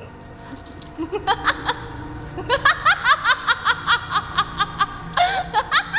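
A woman laughing in quick repeated bursts, starting with a few giggles about a second in and building into a rapid cackle, about five pulses a second, from about two and a half seconds in. Low, steady film-score music plays underneath.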